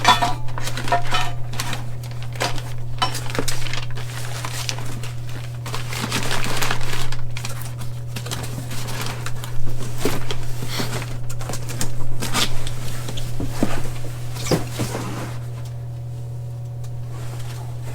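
Metal parts clinking and knocking as they are handled and set down, in irregular clatters. Under them runs a steady low hum from a drink vending machine.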